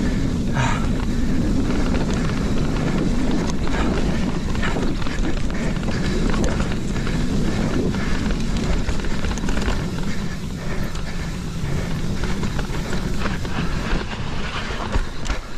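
Mountain bike descending a dirt trail at speed: a steady rush of wind and tyre noise on the mic, with frequent rattles and knocks from the bike over bumps.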